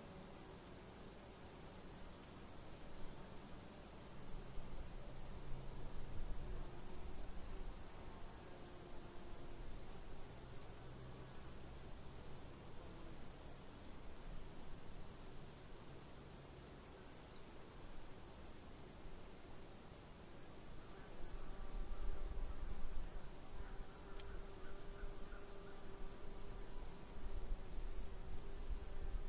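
Crickets chirping: a steady high trill with a rapid, evenly pulsed chirping just below it, over a faint low rumble.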